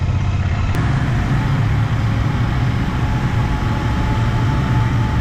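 Motorcycle engine running steadily as the bike is ridden, with a low drone under a rush of wind and road noise.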